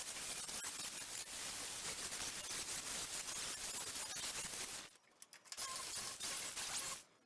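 Angle grinder with a flap disc grinding paint off the steel floor panel, a steady crackly hiss. It stops about five seconds in and runs again briefly before cutting off.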